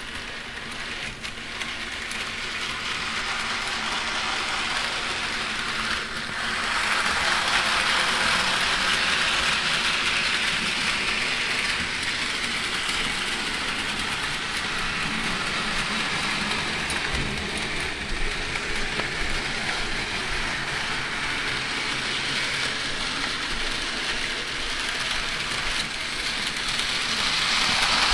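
Bachmann Edward model train locomotive running along its track: a steady whirring hiss of its small electric motor and gears and its wheels on the rails. It grows louder over the first several seconds and again near the end as it comes close.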